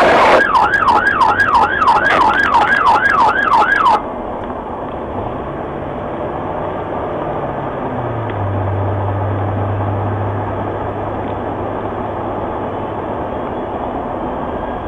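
Police car siren on a fast rising-and-falling yelp, about two cycles a second, cut off suddenly about four seconds in. After that there is a steady hum of the patrol car's engine and tyres on the road.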